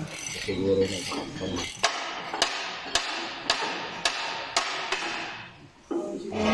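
A hammer striking metal six times at an even pace, a little under two blows a second, while new lining is fitted to a truck's drum brake shoe.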